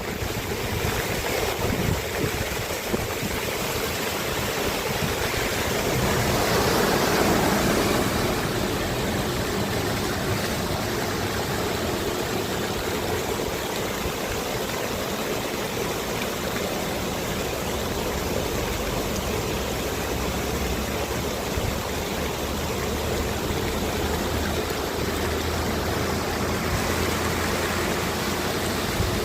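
Heavy rain falling, with rainwater running, as a steady rushing noise that swells slightly about six seconds in.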